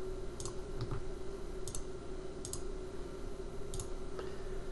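Light, sharp clicks of a computer mouse button, about five of them at uneven intervals, as menu items and objects are clicked on screen.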